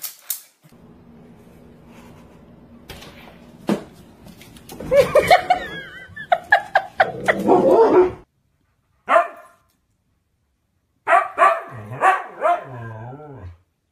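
Dog barking in several bouts of quick barks, with silent gaps between them. A low steady hum sits under the first few seconds before the barking starts.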